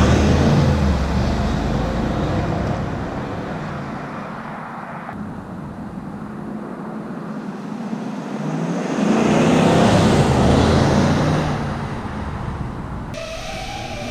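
Inside the cab of a Chevrolet Silverado with the 6.2-litre V8 and its factory exhaust: the engine pulls under acceleration, eases off, then climbs in pitch and loudness again under a second acceleration, with road noise underneath. The sound changes abruptly near the end.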